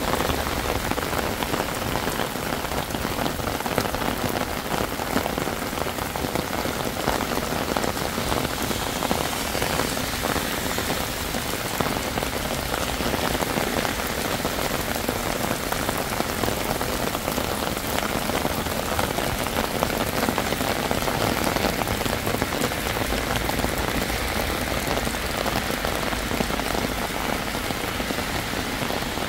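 Heavy rain falling steadily, a dense patter of countless drops.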